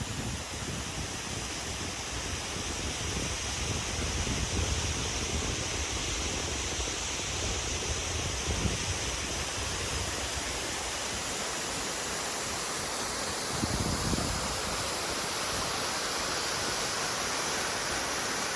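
Bells Canyon waterfall rushing steadily: a mountain falls of clean snowmelt water pouring over granite.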